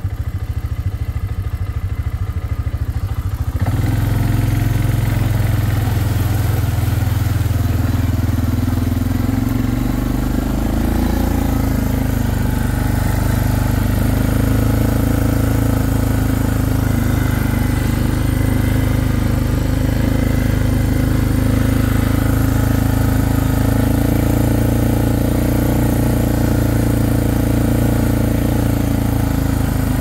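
ATV (four-wheeler) engine running low for the first few seconds, then pulling away louder about four seconds in, revving up and settling into a steady cruising run.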